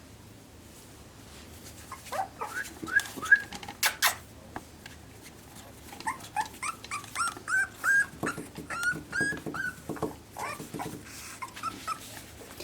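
Very young Pembroke Welsh Corgi puppy whimpering: a string of short, high, rising whines starting about two seconds in, with a few sharp taps among them.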